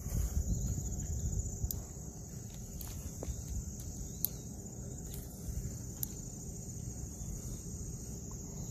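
A steady, high-pitched chorus of trilling insects under a stronger low rumble, with a few scattered sharp ticks.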